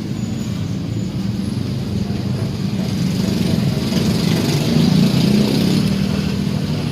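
A motor vehicle's engine running with a low hum, growing louder to a peak about five seconds in and then easing off, like traffic passing close by.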